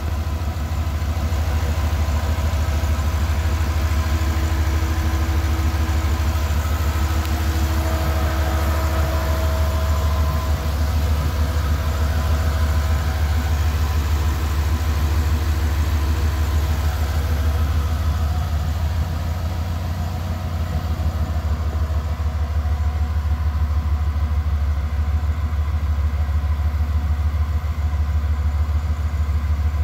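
A 360 Magnum small-block V8 in a 1965 Plymouth Barracuda idling steadily through a dual exhaust with glass-pack mufflers.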